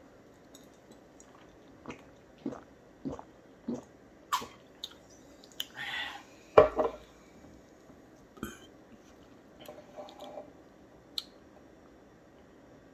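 Gulps of soda swallowed from a glass bottle, a soft gulp about every half to two-thirds of a second, then the glass bottle set down with a sharp knock on a stone countertop about six and a half seconds in, followed by a few light taps.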